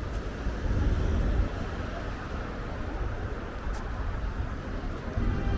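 Street traffic rumble, a steady low noise that swells briefly about a second in, as a vehicle passes.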